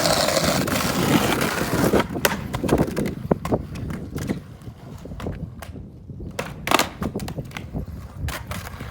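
Skateboard wheels rolling over pavement, with a string of sharp clacks from the board as the skater pushes and tries a trick; the loudest clack comes about two-thirds of the way in.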